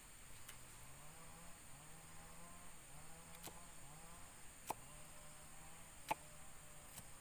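A machete chopping into the husk of a young green coconut: about five sharp knocks, spaced irregularly, the loudest two coming after the middle. A faint droning hum that steps up and down in pitch runs underneath.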